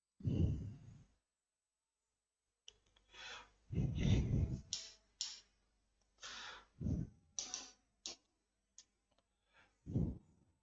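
Writing on a board: irregular short scratches and clicks of the writing tip as words are written by hand.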